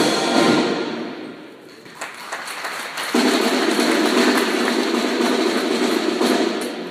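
A marching band's brass chord dies away in the first second, a single thud sounds about two seconds in, then a steady rushing noise holds for about three seconds before brass playing comes back in near the end.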